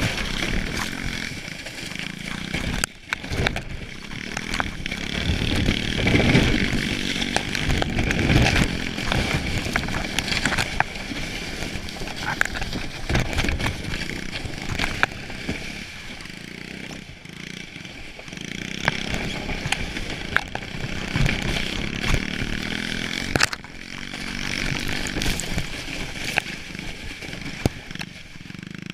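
Small pit bike engine buzzing as it tows a plastic sled across snow, swelling and easing with the throttle. Under it, the sled hisses and scrapes over the snow, with scattered knocks from bumps.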